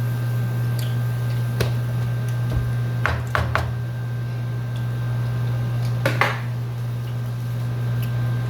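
Kitchen utensils and dishes being handled: a single clink, then a quick run of three, and a short scrape, over a steady low hum.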